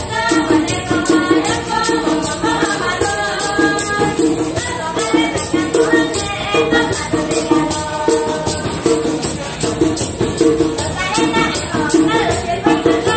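Live Hani folk mountain song sung by several women's voices together, with guitar and a steady shaken-percussion beat.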